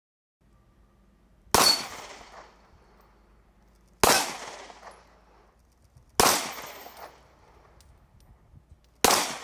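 Four .45 pistol shots from a Dan Wesson PM7, fired slowly a few seconds apart, each a sharp crack with a short echoing tail.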